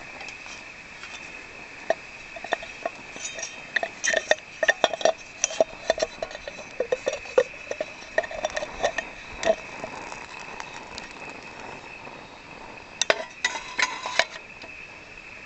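Light metallic clinks and knocks of a metal cup against an aluminium chimney stove, scattered through the middle, then a quick cluster of clinks near the end as the cup is set down into the stove's top.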